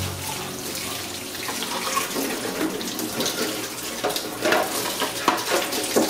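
Tap water running and splashing onto a metal non-stick baking tray in a sink while a sponge scrubs its surface, rinsing off loosened grease, with scattered small knocks and scrapes.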